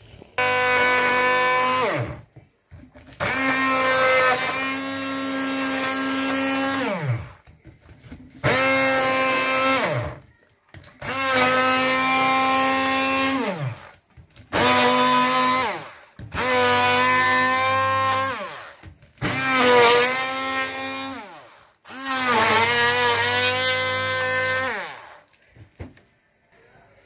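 Stick hand blender run in about eight short pulses of two to four seconds each, chopping cooked dried fish, garlic and green chillies in a plastic jug. The motor's whine drops in pitch as it spins down after each pulse, and it wavers under load in the later pulses.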